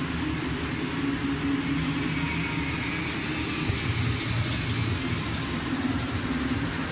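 Automatic roller-cutter fabric slitting machine running, a steady mechanical hum.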